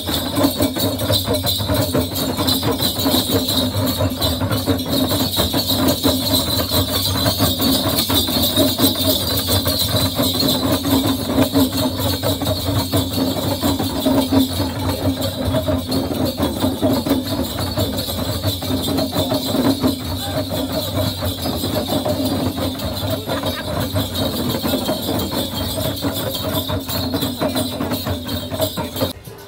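Many small hand drums beaten together by a group of women dancers in a fast, unbroken rhythm: traditional Timorese Likurai drumming.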